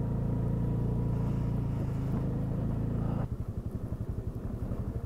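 Motorcycle engine running steadily, then about three seconds in dropping to a quieter, pulsing idle.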